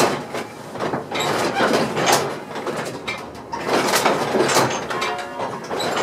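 Bronze church bells swinging in a wooden belfry frame, rung by hand with ropes and heard close up from inside the tower: loud, dense strikes come in uneven surges every second or two.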